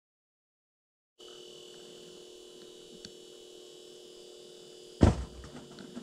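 About a second of dead silence, then a steady hum with a faint high whine. A single sudden loud thump comes about five seconds in.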